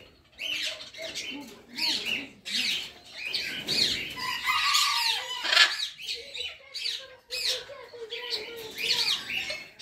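Many birds chirping and squawking over one another, short rising-and-falling calls repeating throughout.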